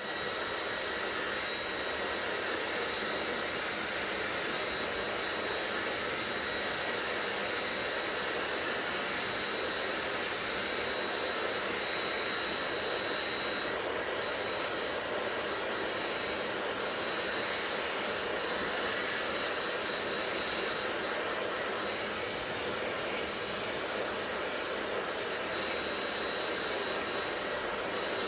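Hair dryer running steadily: a constant rush of blown air with a faint high whine from the motor.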